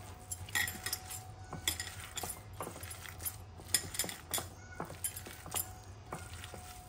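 Hands kneading and pressing a raw minced-chicken gola kebab mixture in a glass bowl: irregular light metallic clinks, about two or three a second, as metal bangles knock against each other and the bowl.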